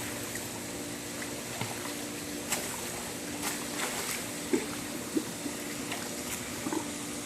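Pool water lapping and light splashing as a Belgian Malinois swims, with a few small sharp splashes and a steady low hum underneath.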